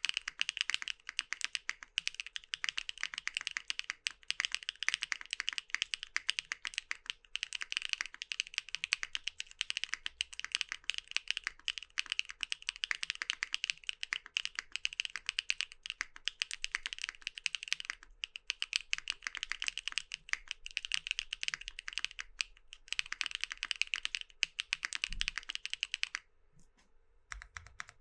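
Fast, continuous typing on a mechanical keyboard fitted with HMX Caramel Pudding V2 linear switches: a dense stream of key strikes and bottom-outs. It stops briefly twice, and pauses for about a second near the end before a few more keystrokes.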